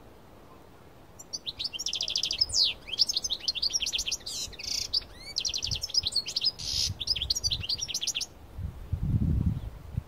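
Male European goldfinch of the parva race singing from its cage: a long run of fast trills and twittering with a few harsh buzzy notes, starting about a second and a half in and stopping about eight seconds in. A low rumble follows near the end.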